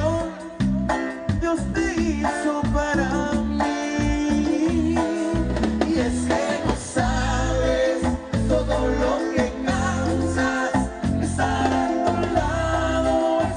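Live band playing a Latin cumbia song, with a pulsing bass line and melody lines and singing.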